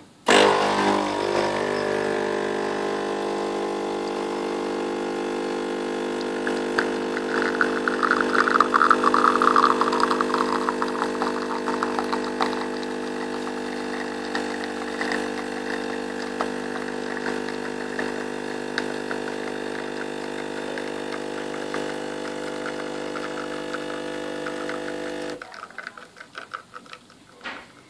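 De'Longhi Magnifica bean-to-cup machine brewing two coffees: its pump runs with a steady hum, with a crackly hiss of coffee streaming out through the middle of the brew. The hum cuts off suddenly about 25 seconds in as the brew ends.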